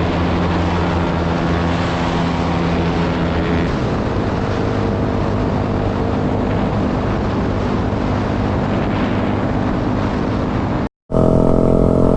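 Yamaha R15M with an SC Project full-system exhaust running on the move. Its engine note holds steady for the first few seconds, then sinks under a loud rushing noise. The sound cuts off abruptly near the end.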